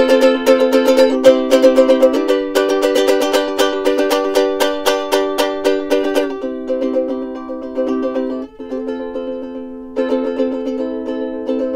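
Soprano ukulele strumming chords as background music. Quick, even strums for about the first six seconds, then slower, softer chords, picking up again near the end.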